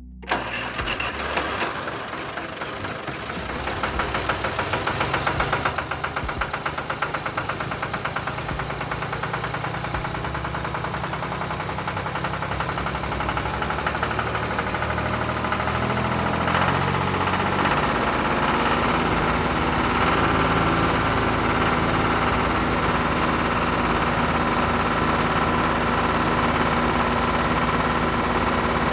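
Tractor engine running steadily with a rhythmic knocking beat. The engine note shifts slightly about halfway through.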